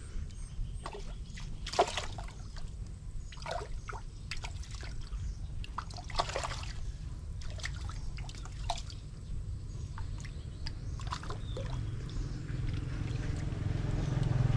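Water splashing and trickling in short bursts over a steady low rumble.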